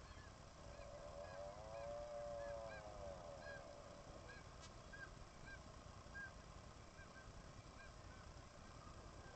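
Seabird colony calls at a bird cliff: one long drawn-out call that rises and falls in pitch about a second in, over a steady run of short, higher calls repeated about twice a second. Faint.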